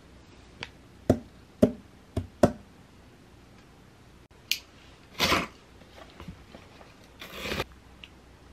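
A hand taps a cardboard delivery box four times in quick succession, then there are two short bursts of cardboard and plastic packaging rustling and scraping as packaged food comes out of the box.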